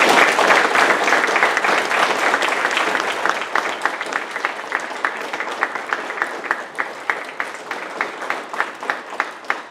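Audience applauding: a dense burst of clapping, loudest at the start, that gradually thins out into a few separate claps and fades.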